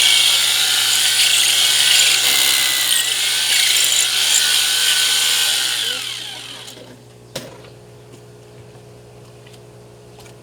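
Core drilling machine running loudly, then switched off about six seconds in and winding down with a falling whine. A single sharp knock follows.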